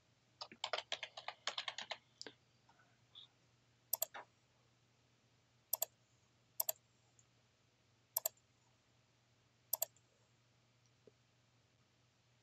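A quick run of computer keyboard keystrokes lasting about a second and a half as a name is typed in. Then come five single mouse clicks spaced one to two seconds apart as options are ticked.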